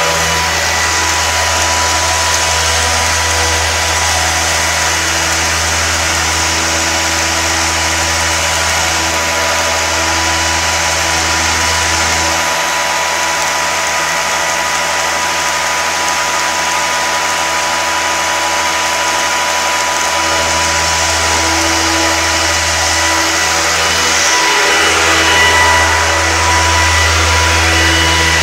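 Five-axis CNC stone machine's water-cooled cutting disc grinding through a marble block: a loud, steady machine noise with a constant high whine over a deep hum. The hum drops away for several seconds in the middle and briefly again near the end.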